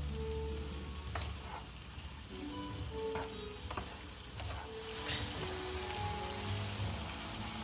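A pan of tomato and vegetable stew sizzling on the stove while a wooden spatula stirs it, with a few short knocks of the spatula against the pan. The sizzle gets louder in the second half, and background music plays underneath.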